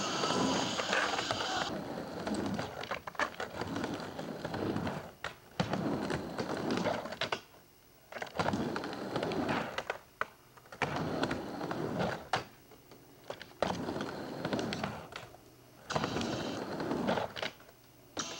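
Skateboard wheels rolling back and forth on a plywood mini ramp. The rolling swells and fades every couple of seconds as the rider goes from wall to wall, with sharp clacks of the board and trucks as he turns at the top.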